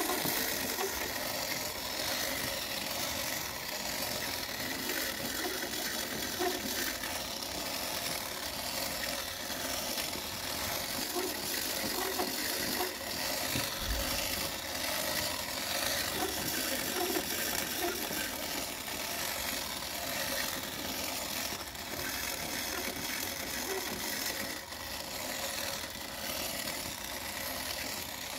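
Clockwork motor of a 1950s Disney wind-up Cinderella and Prince dancing toy running, a steady mechanical whirring rattle as the figures turn.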